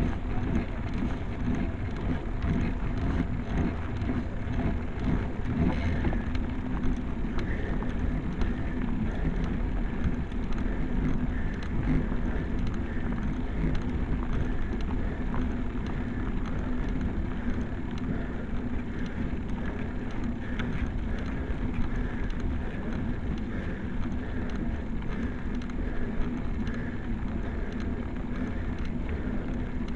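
Road bike rolling over a rough, chip-surfaced road: steady tyre rumble and a dense rattle of the frame and camera mount, with wind on the microphone.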